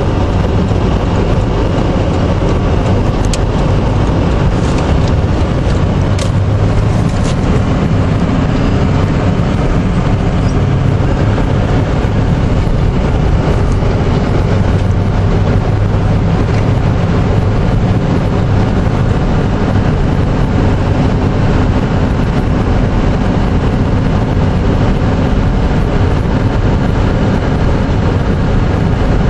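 Vehicle cabin noise while driving on a snow-covered road: a steady low engine drone with tyre and road hiss, and a few light clicks a few seconds in.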